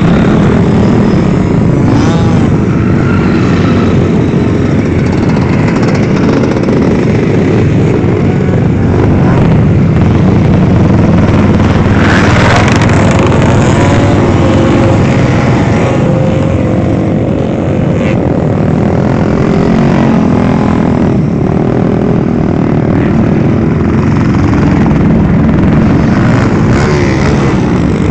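Motocross dirt bikes and a quad racing past close by, their engines revving up and down as they pass, over a continuous loud rumble of engines around the track.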